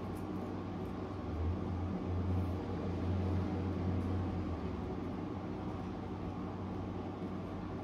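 Steady low hum and hiss of background room noise, a little louder for a few seconds in the middle.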